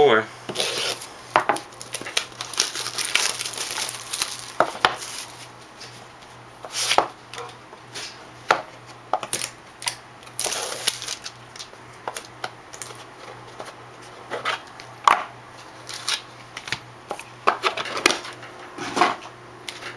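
A sealed 2008 Upper Deck Premier Baseball cardboard box being opened and handled on a desk: irregular taps and knocks of cardboard on the tabletop, with a few short stretches of scraping and rustling as the box is worked open and the wrapped pack is taken out.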